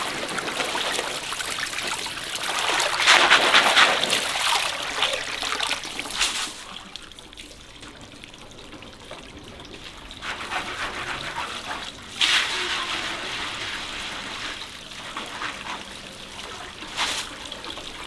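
Water trickling and splashing, heaviest a few seconds in, then a thinner trickle with two short splashes later on.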